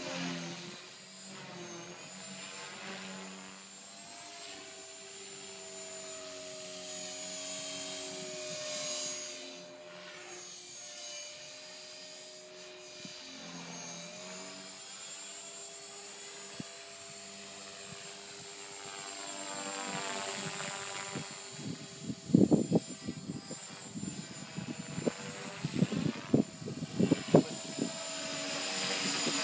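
Radio-controlled model helicopter in flight: a steady motor whine and rotor hum that shifts in pitch as it manoeuvres. From about two-thirds of the way in, as it comes down low, irregular gusts of wind noise buffet the microphone.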